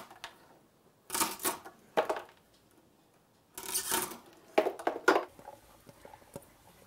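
A hand-operated jakdu, a hinged lever-blade cutter, crunching through hard, woody dried sanghwang mushroom. There are five short, sharp cuts spread over about four seconds, with a pause in the middle.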